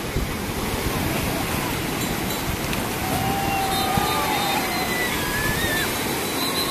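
Sea surf breaking and washing up the shallows in a steady rush of noise, with faint distant voices of people calling out in the middle.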